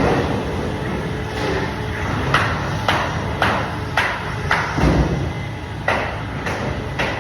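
Band saw running while cutting fish, a steady noisy whir with a quick series of sharp knocks about twice a second from a few seconds in.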